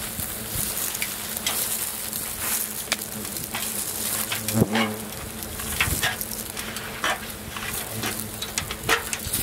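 Wasps buzzing around their nest: a steady hum with scattered rustles and clicks. About halfway through the buzz swells and bends in pitch.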